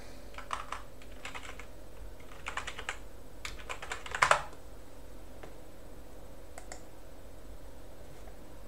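Typing on a computer keyboard: a run of quick key clicks for about four seconds, ending in a louder cluster of strokes, after which only a faint steady hum remains.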